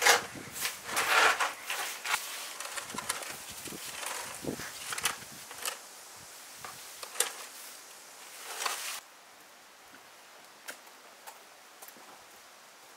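Broom bristles sweeping stone paving and a plastic dustpan scraping along it, in a run of irregular strokes that stop suddenly about nine seconds in, leaving faint outdoor background with a few light clicks.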